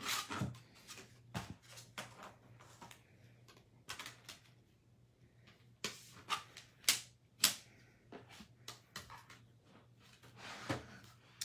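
Scattered, irregular light clicks and taps of card-making tools and materials being handled on a desk, with two sharper clicks a little past the middle.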